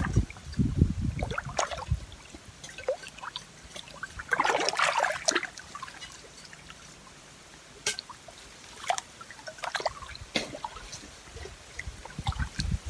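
Shallow stream water splashing and trickling as hands work under the surface, setting a crab trap, in a few bursts with some light clicks and knocks later on.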